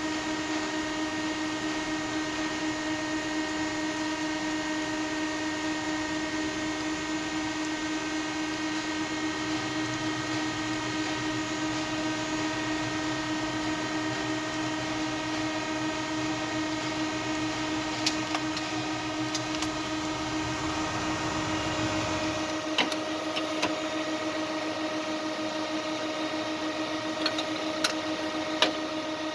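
Muratec MW100 twin-spindle CNC turning center running, with a steady machine whine made of several constant tones. A lower rumble underneath stops about 22 seconds in, and a handful of sharp metallic clicks come in the last several seconds.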